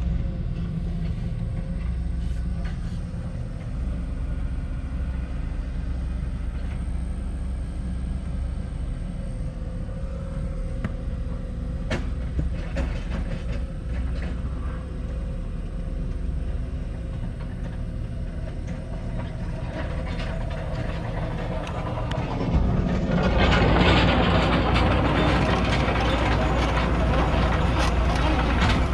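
Cat E120B excavator's diesel engine running steadily. About two-thirds of the way through it gets louder and rougher as the machine works.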